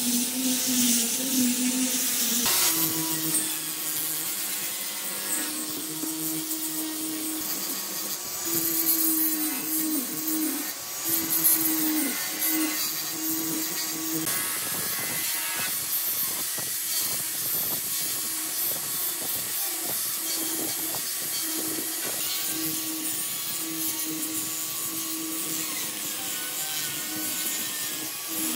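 Angle grinder with a sanding drum running against old railway-sleeper hardwood: a steady motor whine with the hissing rasp of abrasive on wood. The whine steps higher a couple of seconds in and dips in pitch a few times in the middle as the drum is pressed into the curve.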